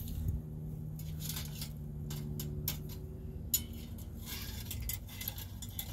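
Thin stainless steel rods clicking and clinking against the perforated stainless steel panels of a folding wood stove as they are slid through the holes, a string of light irregular metallic ticks. A low steady hum sits underneath for the first few seconds.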